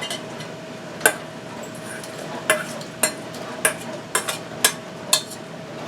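A kitchen utensil clicking and clinking against glass canning jars as hot peppers are portioned into them: about seven light knocks spaced irregularly, roughly half a second to a second apart, over a faint steady hum.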